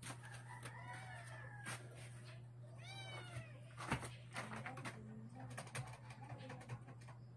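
A cat meowing again and again in short mews that rise and fall in pitch. Under it runs a steady low hum, with scattered sharp clicks as keys on a computer keyboard are pressed.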